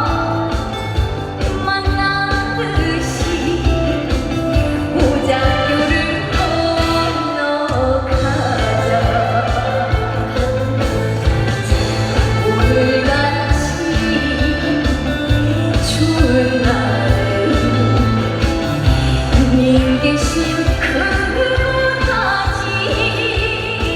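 A woman singing a trot song over backing music with a steady beat; the bass drops out briefly about seven seconds in.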